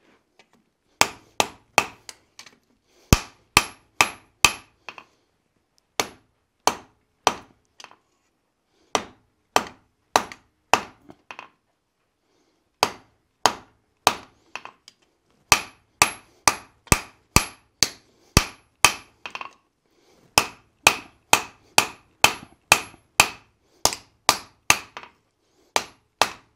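Hand hammer striking red-hot steel on an anvil: a wrapped-eye axe blank being forged, its ears drawn to a point. The blows come in runs of three to six, about two to three a second, with short pauses between runs, and some carry a high ring.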